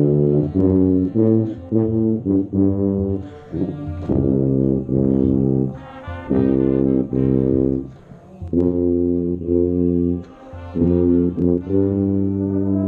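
Marching band brass playing, with the tuba right at the microphone carrying the low line: first a run of short, detached notes, then several longer held notes with brief breaks between them.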